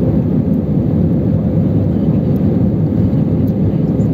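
Airbus A319 jet engines and airflow heard inside the passenger cabin during the climb after takeoff: a steady, deep rumble.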